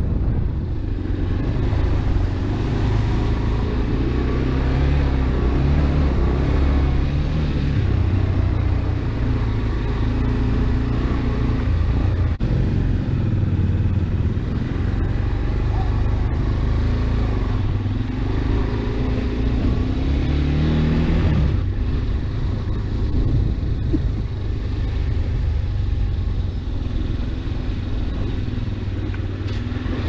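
AKT RX1 motorcycle engine running while riding slowly over a dirt trail, its pitch rising and falling with the throttle, most clearly about two-thirds of the way in.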